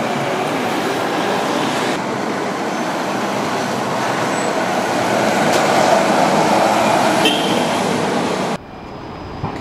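City bus driving across a street intersection, its engine and tyre noise swelling as it passes close and then fading, over steady street traffic. The sound drops sharply near the end.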